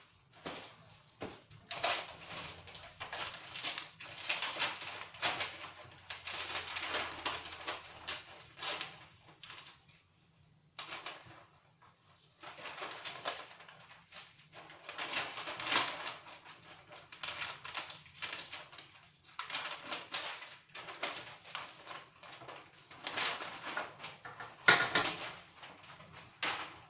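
Plastic protective wrap and cardboard packaging crinkling and rustling in irregular bursts as they are handled and pulled open, with a short lull partway through. Near the end comes one sharp knock, louder than the rest.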